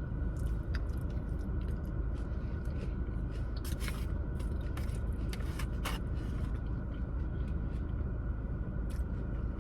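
Chewing with a few scattered wet mouth clicks over a steady low hum inside a car's cabin.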